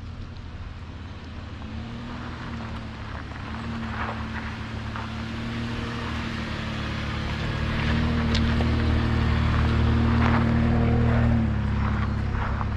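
Chevy Colorado pickup's engine running under load on a dirt road, growing louder over the first ten seconds or so and easing slightly near the end, with the tyres rolling over gravel and scattered small clicks of stones.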